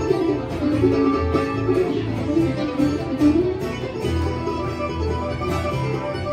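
Country band playing an instrumental passage: plucked strings carrying a melody over a steady bass beat.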